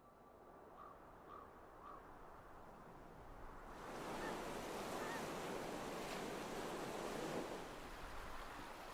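Wind and surf on an open coast: a steady rushing noise that swells in about four seconds in and holds, after a few faint short blips.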